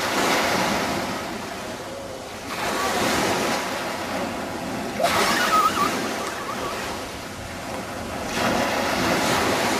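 Sea waves and wind on the microphone: a rushing noise that swells and fades every two to three seconds.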